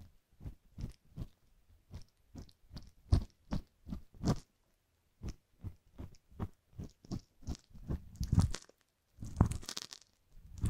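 Metal ear pick scraping inside the canal of a silicone ear model: a run of short crackly scrapes, a few a second, growing denser and louder near the end. This is the sound of scraping out hardened gunk in a mock ear-cleaning.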